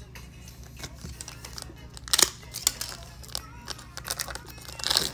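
Foil wrapper of a Panini Donruss Elite football card pack crinkling in the fingers as it is torn open by hand, with sharp rustles about two seconds in and again near the end.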